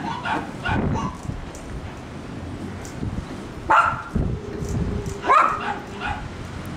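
A dog barks several times in short, separate barks, loudest a little under four seconds in and again at about five and a half seconds.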